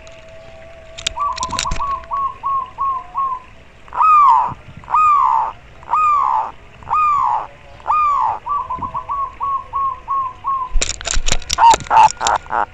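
Zebra dove (perkutut) singing: a quick run of short cooing notes, then five long drawn-out coos about a second apart, then another quick run. Near the end comes a burst of sharp clicks close by.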